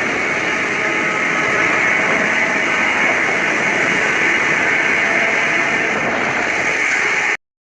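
Loud, steady rushing noise from a spooky sound effect, holding level without a clear pitch and then cutting off abruptly near the end.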